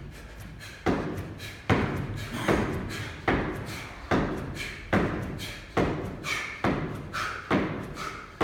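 Rapid jumping pull-ups: about ten thuds, a little under one a second, as feet land back on a plyo box after each rep.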